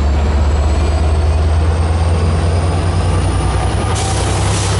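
Amtrak EMD F59PHI diesel locomotive 463 running under power as its train pulls out, a steady low engine drone with a faint whine slowly rising in pitch. A short hiss comes near the end.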